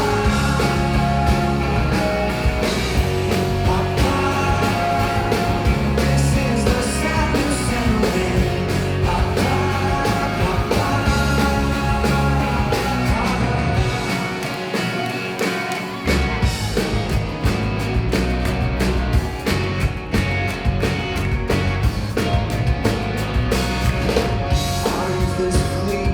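Live indie rock band playing an instrumental stretch: drums, bass, guitars and synths at full volume. The bass drops out for about two seconds past the middle, then the full band comes back in.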